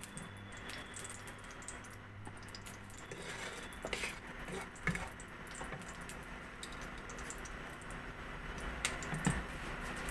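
Hot mustard oil sizzling softly in a nonstick wok, with scattered crackles and a few light clicks and knocks, one near the middle and one near the end; the sizzle grows a little louder toward the end.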